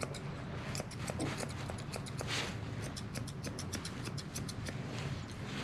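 Grooming shears snipping through a Shih Tzu's coat: quick runs of short, crisp snips, several a second, with brief pauses between runs.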